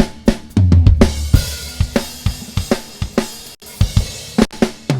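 Recorded rock drum kit, with kick, snare, hi-hat and cymbals, playing through a Calrec PQ1549-style EQ with its Q switched out. Long low kick-drum booms ring under the hits about half a second in and again at the end. The sound cuts out for an instant about three and a half seconds in.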